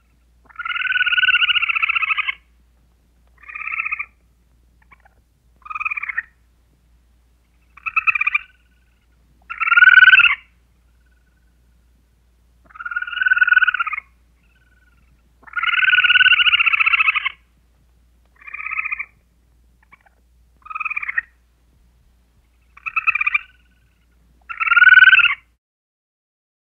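Rasping, rapidly pulsed animal calls, eleven of them at uneven gaps: two long calls of about a second and a half, the rest short. The same run of calls repeats after about fifteen seconds, as from a looped recording.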